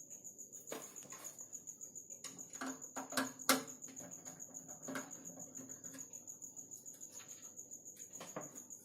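Scattered clicks and light knocks from the screws being undone on a desktop PC cabinet's side panel, the sharpest about three and a half seconds in. A faint, steady, high-pitched pulsing tone runs underneath.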